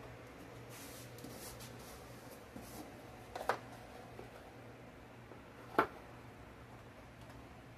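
Quiet kitchen handling noises: a soft rustle in the first few seconds and two short light knocks, over a steady low hum.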